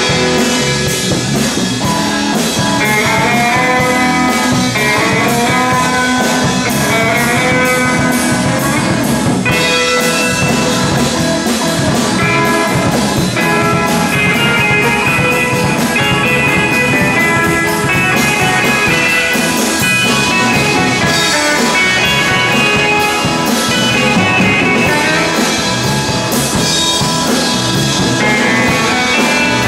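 Live rock band playing loudly: electric guitar lines over a drum kit's steady beat, picked up by a camcorder in the room.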